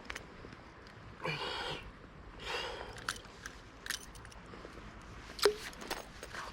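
Faint handling noises as a hook is worked out of a trout's mouth: scattered small clicks and two brief swishes, about a second and two and a half seconds in.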